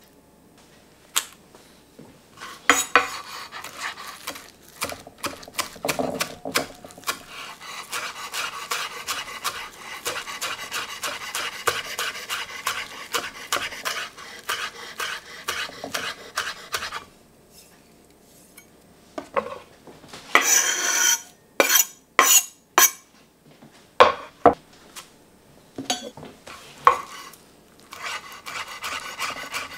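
Chef's knife chopping fresh herbs, chives then coriander, on a wooden board in long runs of quick strokes. A short pause midway is followed by a few louder separate knocks, and the quick chopping starts again near the end.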